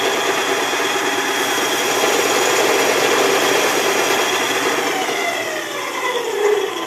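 Stationary combination belt and disc sander running loudly while a wooden board is held against its sanding belt. About four and a half seconds in, the motor's pitch starts to fall as the sander winds down.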